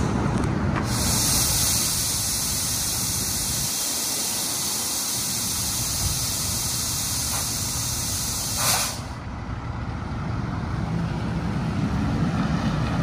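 2020 International HV607 roll-off truck's diesel engine running as it pulls away, with a long hiss of air from its air brake system lasting about eight seconds and ending in a short louder burst. The engine rumble grows again near the end.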